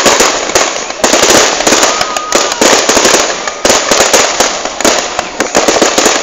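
Fireworks display going off: a dense, continuous run of bangs and crackling, with a new loud burst about every second.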